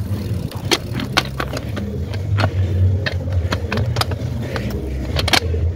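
Mountain bike rolling over rough trail: a steady low rumble with irregular sharp clicks and knocks from the bike rattling over bumps, the loudest pair a little after five seconds in.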